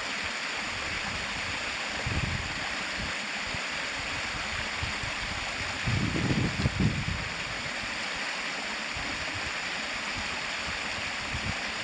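Steady rushing of water from a cascading waterfall, with a couple of low rumbles, one about two seconds in and a longer one around the middle.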